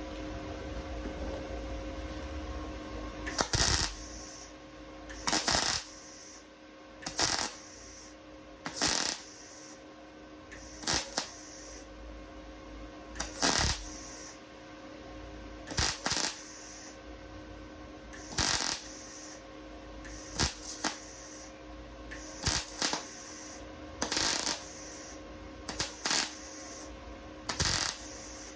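MIG welder laying short plug welds to fit a steel repair panel: about a dozen brief crackling bursts, one every two seconds or so, with a steady hum between them.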